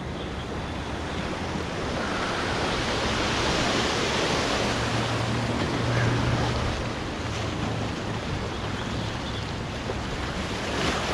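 Ocean surf washing against the shore, with wind on the microphone. The wash swells toward the middle and eases off near the end.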